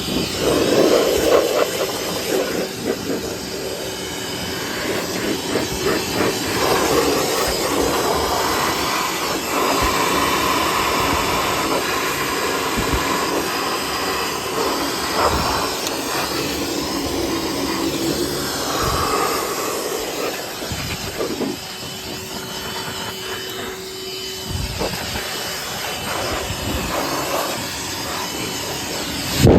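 Shop vacuum running steadily, sucking loosened dust out of a furnace's blower wheel housing, its pitch wavering as the nozzle moves, with occasional short knocks.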